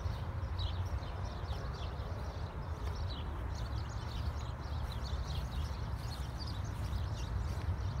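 Several songbirds chirping in short, high notes, a few calls a second, over a steady low rumble.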